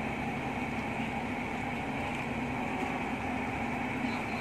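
Truck-mounted loader crane running steadily, the truck's engine and hydraulics working the boom as it holds and swings a small truck in the air. A constant mechanical drone with a low steady hum.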